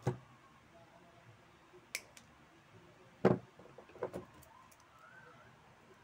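Hand tools and small parts being handled on a workbench: a few scattered knocks and clicks, the loudest about three seconds in, with a small cluster just after.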